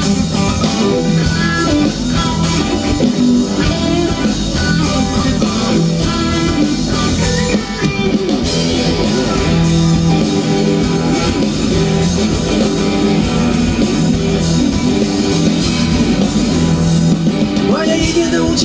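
Live rock band playing guitars over a drum kit, heard loud through the stage PA.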